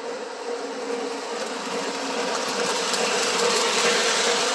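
Lionel O-gauge model trains running on three-rail track: a steady electric buzzing hum with wheels rumbling over the rails, growing louder as a train rushes past close by about three seconds in.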